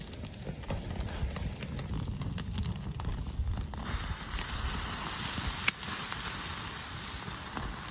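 Campfire crackling, with a steady hiss and scattered sharp pops; one pop near the end of the fourth second is louder than the rest.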